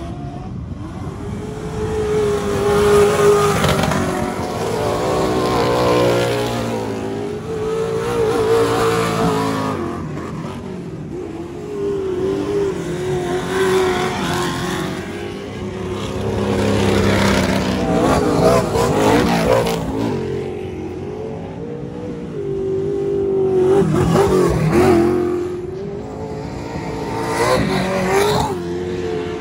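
Short-course off-road race trucks' engines revving hard on a dirt track. Several vehicles pass close in turn, each rising and falling in pitch as it accelerates and lifts off through the corner.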